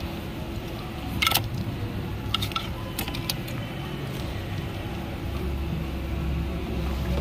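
A few sharp metallic clinks of hand tools on metal while working on the engine, the loudest about a second in and more around two to three seconds. Under them runs a steady low rumble that swells near the end.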